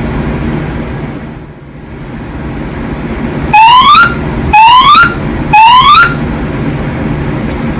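Fire alarm voice-evacuation speakers sounding three loud rising whoop tones, each about half a second long and about a second apart, over a steady low hum. This is the building's fire evacuation signal.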